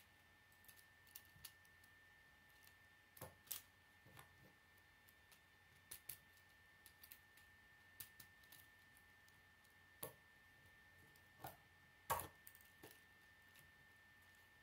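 Plastic K'nex rods and connectors clicking and knocking as they are handled and snapped together on a toy car chassis: a dozen or so scattered sharp clicks, the loudest near the end.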